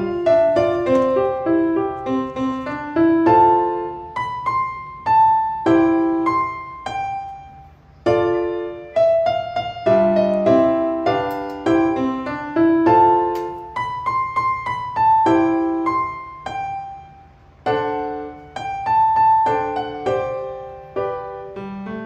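Background music: a gentle piano melody of struck notes played in phrases.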